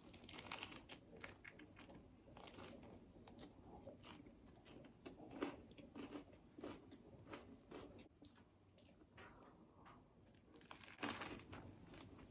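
Faint crunching and chewing: a person biting into and eating a crunchy fried-chicken taco, with irregular crisp crunches.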